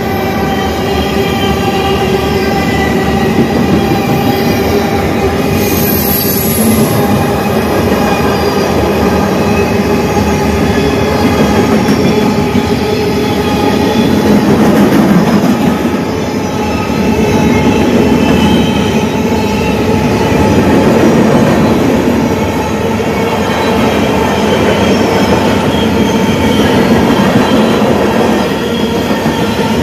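Cars of a long CN freight train rolling past, with steady metallic wheel squeal over the rolling noise.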